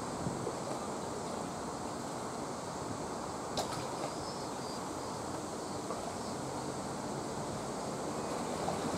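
Wind blowing across the microphone over a steady harbour ambience, with one brief sharp click about three and a half seconds in.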